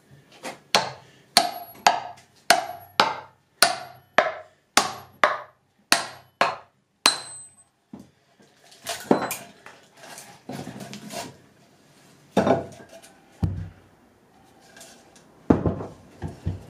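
A hammer strikes a metal axe head about twice a second, a dozen blows each with a short metallic ring, driving it into a log to split off a wood blank. After that come a few irregular wooden knocks and thuds as the split piece is worked loose and handled.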